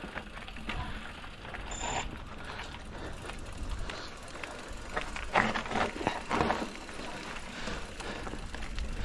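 Mountain bike rolling down a dirt trail: tyres on the ground and a running clatter of clicks and rattles from the bike, busier for a moment just past halfway.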